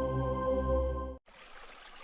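Ambient background music of sustained, ringing tones over a low drone, which cuts off abruptly a little over a second in, leaving a faint steady hiss.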